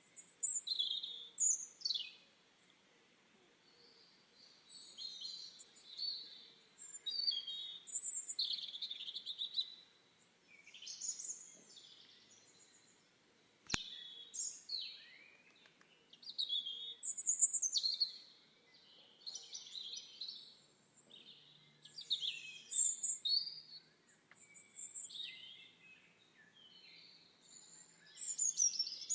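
Wild birds singing and chirping, short high phrases from several birds overlapping one after another, with one sharp click about halfway through.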